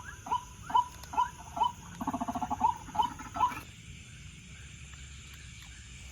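White-breasted waterhen calls: short notes repeated about twice a second, with a quick rattle about two seconds in, stopping after about three and a half seconds.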